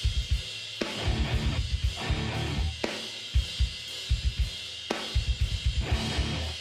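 Outro music driven by a drum kit: fast runs of bass-drum hits under a steady wash of cymbals.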